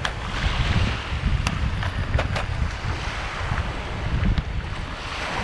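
Wind buffeting the microphone over surf washing onto the beach. Between about one and a half and two and a half seconds in come a few sharp clicks as a clear plastic tackle box is handled.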